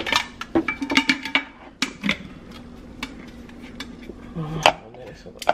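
Glass storage jars and their metal lids clinking and knocking against each other and the shelf as they are handled, with a short ringing glassy clink about a second in.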